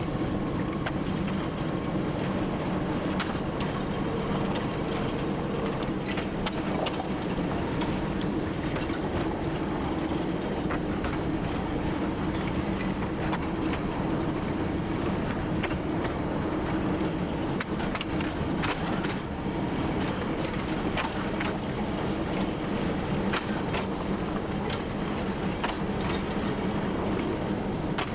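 TU7 narrow-gauge diesel locomotive under way: its diesel engine runs with a steady drone while the wheels click and knock over the rails.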